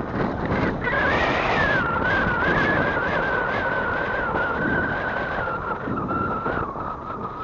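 Riding a bicycle on a paved road: steady wind and tyre noise over a thin whine that wavers and slowly falls in pitch.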